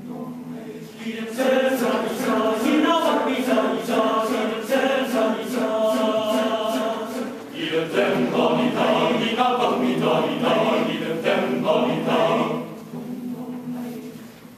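Male choir singing a cappella, many voices in close harmony, with a crisp rhythmic pulse of about three beats a second through the first half and a softer passage near the end.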